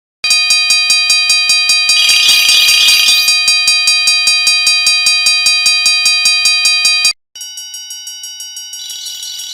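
Level-crossing warning bell ringing fast, about five strokes a second, with a burst of hiss over it for a second or so about two seconds in. It cuts off about seven seconds in, and a second, quieter crossing bell with a different pitch starts ringing straight after.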